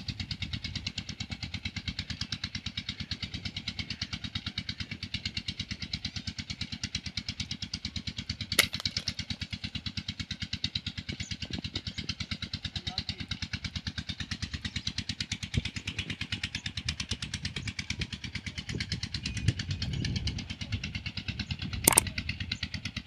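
An engine running steadily with a fast, even chug, with a single sharp crack about eight and a half seconds in and two sharp clicks near the end.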